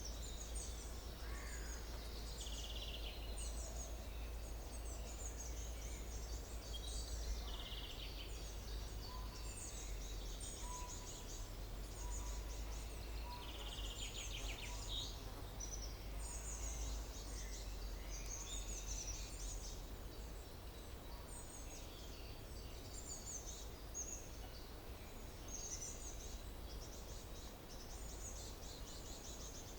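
Daytime forest ambience: many birds calling and chirping at once in quick, overlapping high notes, over a steady low background rumble.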